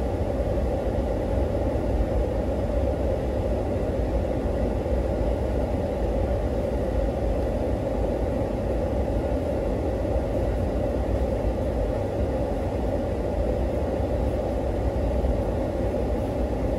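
Car engine idling, heard from inside the cabin: a steady low rumble that does not change.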